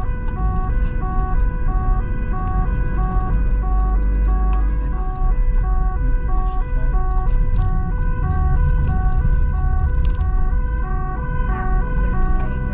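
Dutch police car's two-tone siren, alternating high and low about every three-quarters of a second, heard from inside the car over engine and road noise: the car is on an urgent run to an emergency call.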